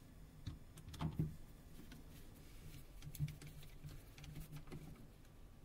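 Faint clicks and taps of a torque screwdriver with a Torx Plus size 4 bit fastening small screws into a phone's frame, over a faint low hum.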